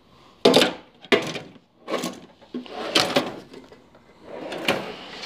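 Hand tools being handled and set down in a toolbox drawer: a handful of separate knocks and clatters spread over a few seconds, with some rustling near the end.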